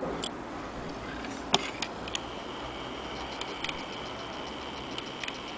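Scattered small metallic clicks and ticks from an antique French mantel clock movement held in the hand, often in pairs about a quarter second apart, the sharpest about a second and a half in.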